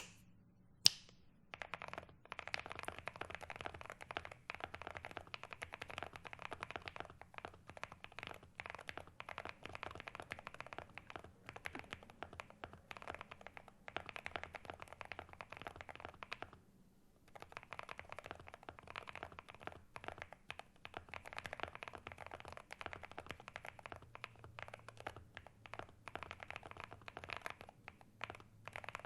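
Typing on a Monsgeek M1V3 mechanical keyboard with Akko Rosewood switches: fast, continuous keystrokes, after one sharp click about a second in, with a brief pause a little past halfway.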